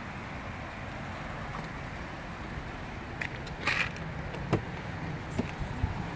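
A steady low vehicle hum, with a few clicks and a knock between about three and six seconds in as the BMW sedan's rear door is unlatched and opened.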